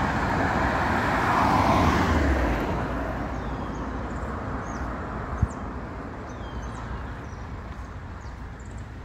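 A car passing along the street: its tyre and engine noise swells to its loudest about two seconds in and fades away over the next couple of seconds, leaving a quieter street background. A single sharp knock about five seconds in.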